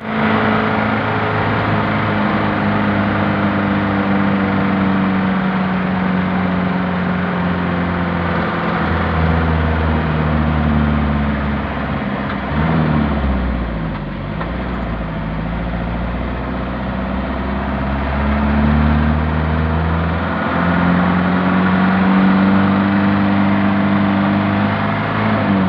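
Car engine running with a loud, steady drone, its pitch dipping and climbing again about halfway through. The engine sounds as if it is about to explode.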